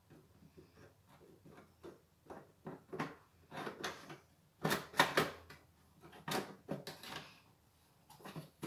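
Handling noises from a small plastic USB mini air cooler being taken apart and turned over: irregular clicks, knocks and rustles, with a cluster of louder clatters about halfway through.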